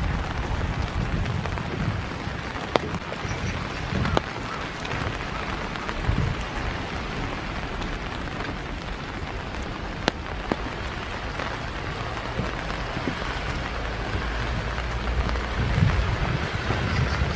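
Steady rain falling, an even hiss with a few sharp ticks of single drops landing close by. A low rumble sits underneath and grows stronger in the last few seconds.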